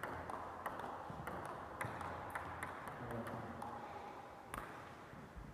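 Table tennis rally: a celluloid ball clicking sharply off paddles and the table about every half second, with a light echo from a large sports hall. The hits stop a little before the end.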